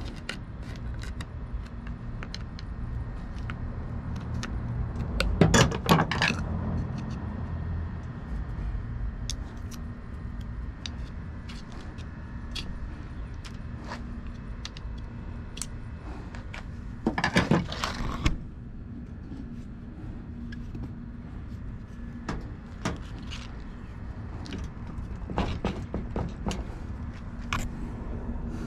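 Metal tools and compressor parts being handled during a semi-hermetic compressor teardown: scattered clinks and knocks over a steady low hum, with two short bursts of rapid metal clattering about six seconds in and again near eighteen seconds.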